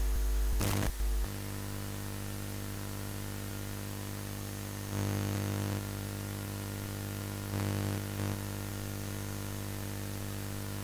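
Steady electrical hum with its stacked overtones over a hiss in the recording, swelling briefly a few times.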